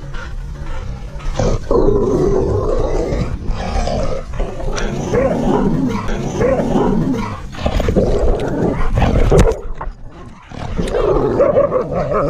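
Dogs growling, with wavering growl-howls, during a rough play-fight between a pit bull and a husky close to the microphone. The growling breaks off briefly near the 10-second mark, then starts again.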